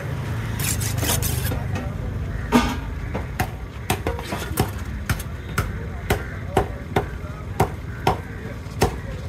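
A knife chopping through fish on a wooden block in an even rhythm of about two sharp strokes a second, starting a few seconds in, over a steady low rumble.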